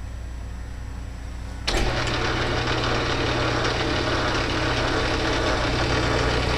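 Small metal lathe switched on about two seconds in, the spindle and three-jaw chuck with its brass workpiece coming straight up to 550 rpm and running steadily with a loud motor hum.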